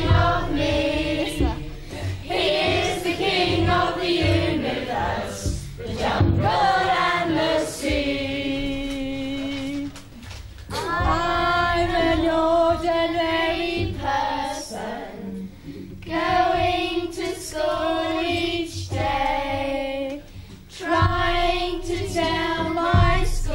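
Children and a woman singing a children's action song together in sung phrases with short breaks between them.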